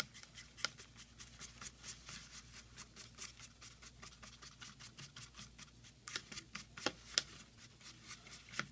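Applicator brush stirring hair-colour developer cream and dye together in a clear bowl: quick, faint, rhythmic strokes, about five or six a second, as the mix is worked into a smooth paste.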